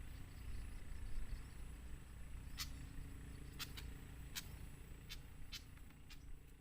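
Outdoor ambience: a steady low rumble and a thin, steady high-pitched tone, with about seven short sharp clicks or chips scattered through the second half.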